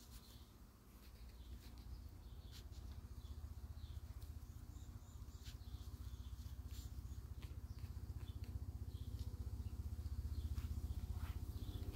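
Faint backyard outdoor ambience: a low rumble that grows steadily louder, with scattered light clicks and a few faint high bird chirps.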